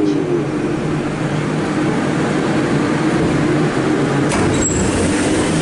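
Interior of a Siemens VAL 208 driverless metro car standing at a station: a steady rumble from the car's running and ventilation equipment as the braking whine dies away at the start. About four seconds in comes a clunk and a short high beep, the door-release signal just before the doors open.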